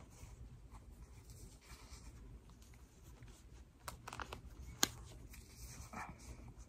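Faint rustling and handling as small balls of metallic sparkle yarn are gathered up and pressed against a chunky crocheted sweater, with a few light clicks about four to five seconds in, one of them a sharp tick.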